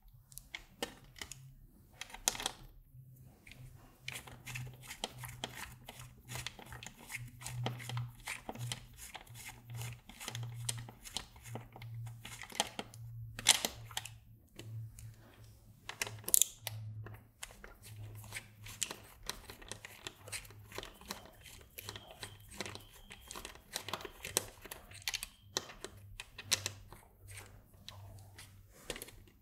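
Screwdriver with a hex bit loosening a row of socket screws and their nuts on a circuit-board panel: a long run of irregular small clicks and ticks of the metal tool on the screws, with short pauses as it moves from screw to screw.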